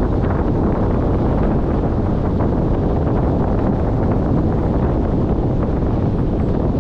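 Wind buffeting a GoPro action camera's microphone on a paraglider in flight: a steady, loud, low noise with no letup.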